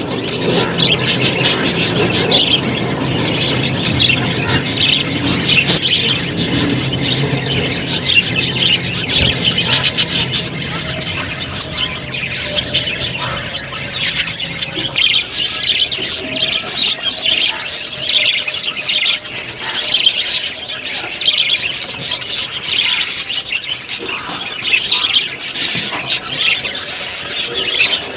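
Budgerigars chirping and chattering continuously in a dense run of quick, high calls, with a low background rumble under them that fades out about halfway through.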